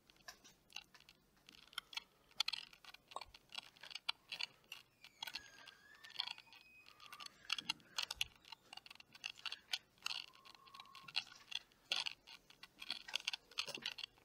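Faint, irregular clicking and crackling from a body-worn camera as the wearer moves and handles a smartphone, with a couple of brief faint squeaky tones around five and ten seconds in.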